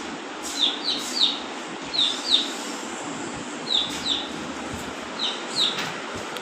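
Pet parrot giving short, sharp chirping calls, mostly in quick pairs, about nine in all.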